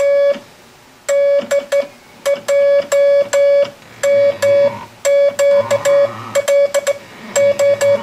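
Morse code sidetone from a ham keyer, keyed by an Instructograph's hand-cranked punched paper tape: one steady mid-pitched beep switching on and off in dits and dahs, with short pauses about half a second in and near the middle. The machine's internal relay clicks at each switching.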